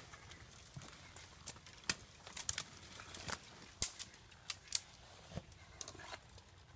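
Footsteps pushing through dry brush: twigs and dead sticks snapping and leaves crackling underfoot, in irregular sharp cracks.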